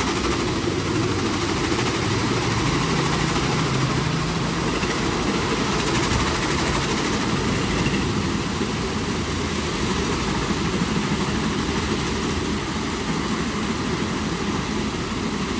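WashTec SoftCare² Pro rollover car wash running mid-cycle: its machinery gives a loud, steady rushing noise without a break.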